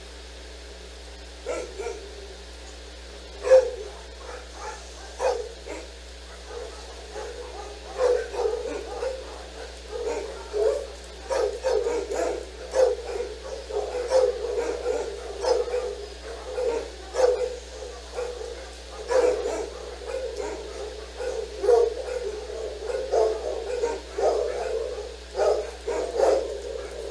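A dog barking repeatedly: a few barks about a second and a half in, then barks coming almost without a break from about eight seconds on, over a steady low hum.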